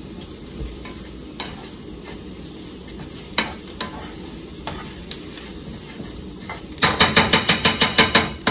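Sliced vegetables sizzling in a frying pan as a utensil stirs them, with a few scattered clicks of the utensil on the pan. Near the end comes a quick run of about a dozen taps of the utensil against the pan, roughly eight a second.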